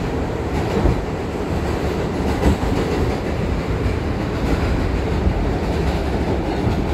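New York City subway car running on the rails, heard from inside the car: a steady, loud rumble and clatter of the wheels on the track, with a couple of sharper knocks about one second in and near two and a half seconds.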